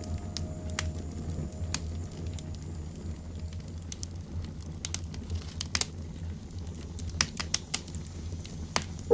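Scattered light clicks and crinkles of desk work, such as writing, handling paper or typing, over a steady low hum.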